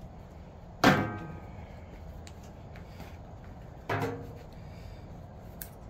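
Two knocks of objects being set down on a hard surface: a loud one about a second in that rings briefly with a clear tone, and a softer one about three seconds later.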